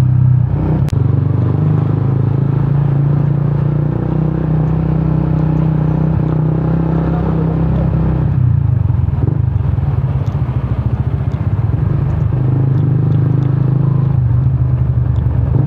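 Yamaha Sniper 150's single-cylinder engine running through its gutted stock exhaust ("kalkal" pipe) while being ridden. The engine note shifts about eight seconds in and again near the end.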